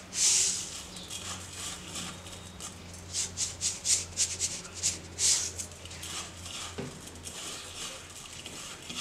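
Salt shaken from a shaker into a steel mixing bowl: a short rattle at the start, then a run of quick rattling shakes, about three or four a second, partway through. After that, softer rubbing as fingers mix the spice paste in the bowl.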